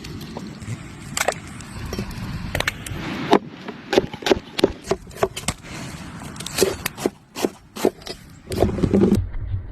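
An irregular series of sharp clicks and knocks over a low rumble, coming thicker in the second half.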